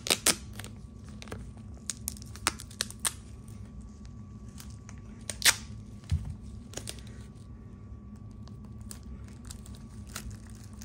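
Hands-on workbench handling noise: scattered sharp clicks and crinkly tearing sounds, most of them in the first seven seconds, over a steady low hum.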